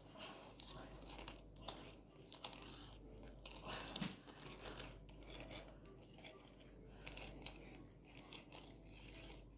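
Faint, irregular scraping and rubbing of kitchen utensils and containers, with a few light clicks, as food is handled and stirred.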